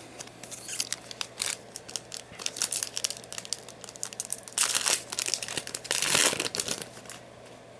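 Foil Yu-Gi-Oh booster pack wrapper crinkling in the hands with many quick crackles, then two longer rips in the second half as the pack is torn open.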